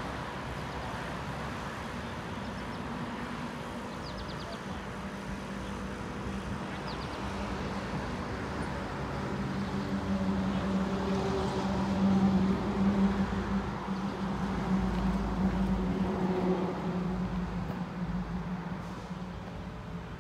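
An engine's steady hum over outdoor background noise, growing louder about halfway through and easing off near the end.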